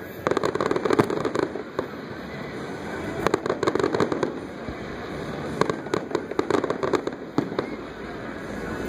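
Fireworks display: many sharp bangs and crackles from bursting shells, coming in quick clusters.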